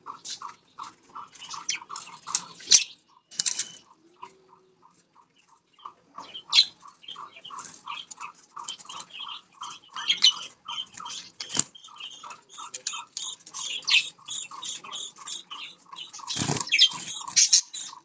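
Budgerigars chirping in a steady run of short chirps, about four a second, with scattered higher squawks and clicks. Near the end comes a louder burst of wing-flapping and splashing as a budgie bathes in its water dish.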